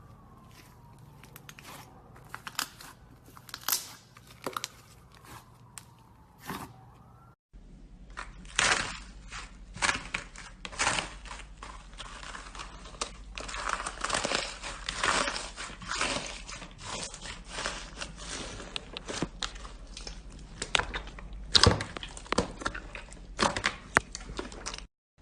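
Slime being squeezed and handled, making irregular crackling clicks and pops. It breaks off briefly about seven seconds in, then comes back as denser, louder crackling.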